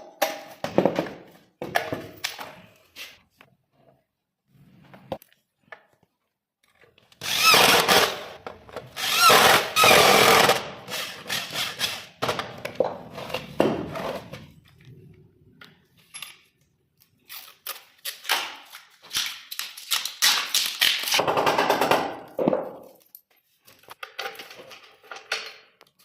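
Power drill boring into the wooden drawer front, most likely cutting the hole for the lock cylinder. It runs in two longer bursts under load, with separate knocks and clicks of handling between them.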